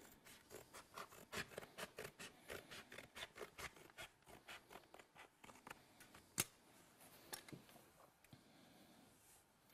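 Hand caulking gun being squeezed to lay a bead of sealant, its trigger giving a fast run of faint clicks, about four a second. One sharper click comes about six seconds in, then only a few scattered ticks.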